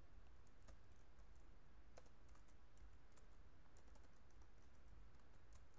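Faint computer keyboard typing: scattered, irregular keystrokes over a quiet background hiss.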